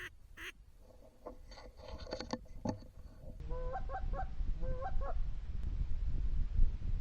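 Geese honking: a run of short honks a little past halfway, then a second, shorter group, over a low rumble. Fainter calls come before them.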